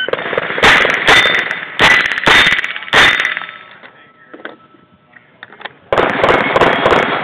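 Rapid shots from a Smith & Wesson M&P 15-22 .22 LR rifle, with the steel plates ringing after the hits. One quick run of about six shots fills the first three seconds. After a pause of about two and a half seconds, another run of shots starts about six seconds in.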